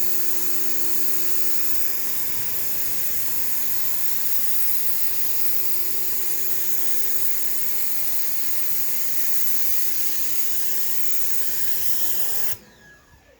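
Pressure washer running with its water jet spraying onto cedar deck boards: a steady motor hum under a strong, even hiss. It cuts off abruptly near the end.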